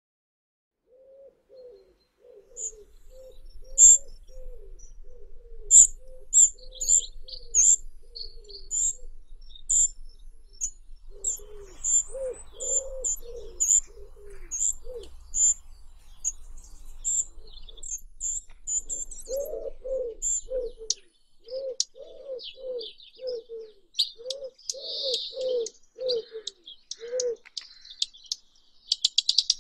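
Birds calling: runs of low, quickly repeated cooing notes, with high thin chirps repeating through the first two-thirds. A rush of rapid clicking comes in near the end.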